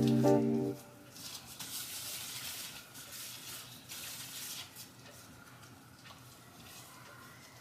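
Background music ends within the first second, then water runs with a soft, even hiss for about four seconds before stopping.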